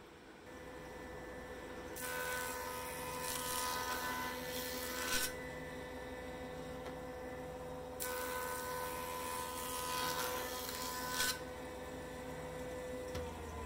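Woodshop jointer running with a steady hum. Twice an olive-wood board is fed across the cutterhead, each pass about three seconds of loud cutting noise. Near the end the motor's tone starts falling as the machine winds down.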